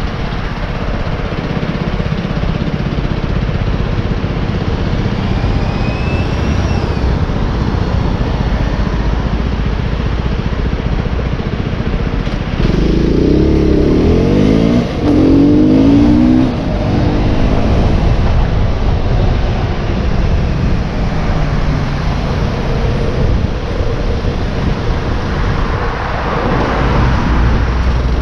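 Enduro motorcycle engine running low and steady under a rumble of wind on the microphone. About halfway through it revs up and accelerates, its pitch climbing through two gears with a brief dip at the shift between them.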